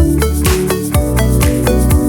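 Instrumental background music with a steady beat: regular deep drum hits under quick percussive ticks and bright pitched notes.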